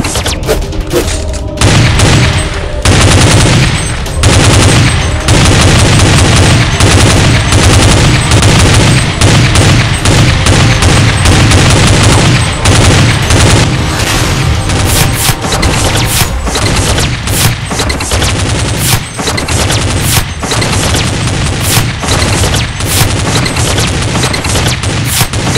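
Rapid machine-gun fire sound effects with heavy booms, dubbed over the footage rather than the blaster's own sound. They are quieter for the first second and a half, then dense and continuous.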